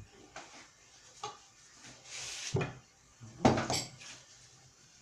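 A few scattered light knocks and clinks of kitchen pots and utensils being handled, the loudest about three and a half seconds in, with a brief hiss around two seconds in.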